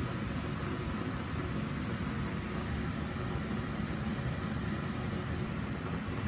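Steady low rumbling background noise with no distinct event in it, and a faint, brief high chirp about three seconds in.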